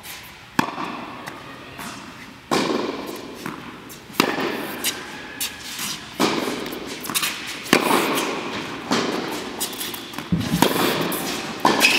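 Tennis ball struck back and forth with rackets in a groundstroke rally: sharp hits about every one and a half to two seconds, with fainter knocks between, each ringing on in a large indoor court hall.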